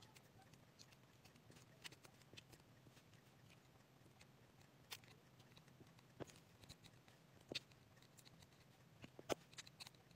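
Faint, scattered small clicks and taps of a diamond-painting drill pen picking up resin drills and pressing them onto the adhesive canvas, the loudest tap near the end.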